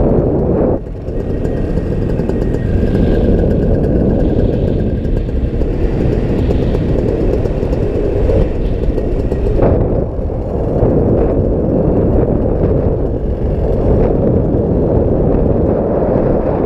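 Paramotor in flight: steady, loud engine and airflow noise.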